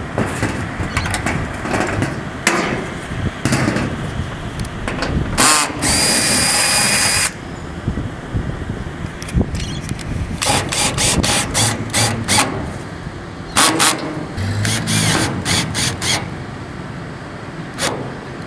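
Cordless drill-driver backing out and driving a roof screw through a mounting bracket into corrugated metal roof sheeting, with one steady whining run of about a second and a half about six seconds in. Short sharp clicks and knocks of the screws, bracket and tool on the metal roof come before and after it.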